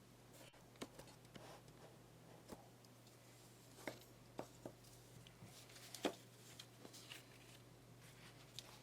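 Scattered light clicks and taps of small objects being handled, the strongest about six seconds in, over a faint steady hum.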